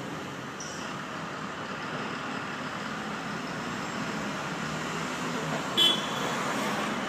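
Road traffic on a city street: cars and a bus driving by, the noise growing as a car passes close near the end. A brief, sharp, high-pitched sound stands out just before that.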